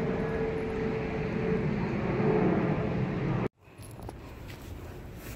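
Steady outdoor background rumble with a faint held hum, cutting off abruptly about three and a half seconds in, followed by quieter ambience with a few faint clicks.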